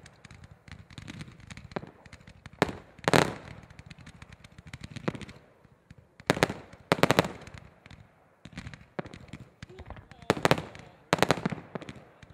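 Fireworks display firing in rapid volleys of sharp bangs. There are three main flurries, about four seconds apart, with lighter popping and crackle between them.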